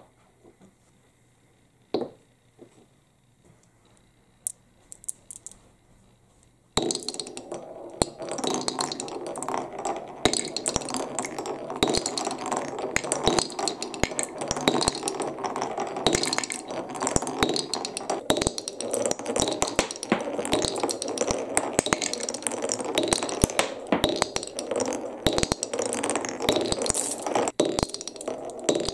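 Glass marbles in a wooden Cuboro marble run. A few separate clicks sound while the pieces are set in place, then from about seven seconds in comes a dense, continuous rattle of several marbles rolling along the wooden tracks and clacking as they drop through the blocks.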